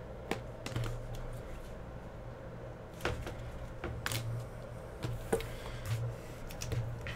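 Trading cards and a cardboard hobby box being handled on a tabletop: a handful of scattered light taps and rustles over a low steady hum.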